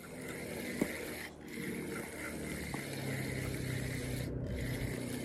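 Spinning reel being cranked, its gears giving a steady rubbing whir as line is wound in.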